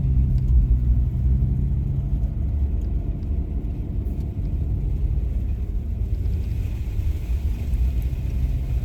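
Wind buffeting the microphone outdoors in a snowstorm, a loud, uneven low rumble.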